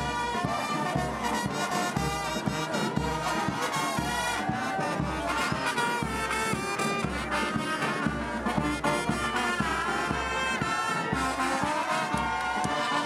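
Music with brass instruments over a steady beat.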